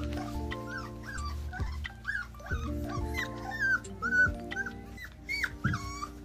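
Young black Labrador puppies whimpering in short, high, rising-and-falling squeaks, about two or three a second, over background music.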